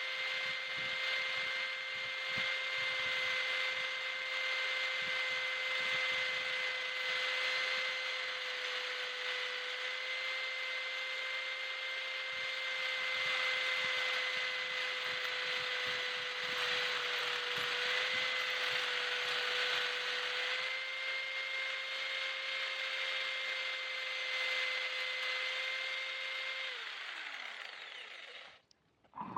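Handheld electric power tool running steadily, a high motor whine over a grinding hiss as it works the metal or wood, then switched off near the end, its pitch falling as it winds down.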